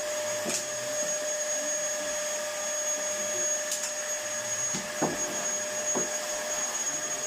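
Dyson bagless canister vacuum cleaner running steadily, its motor giving a constant whine, with a few light knocks over it.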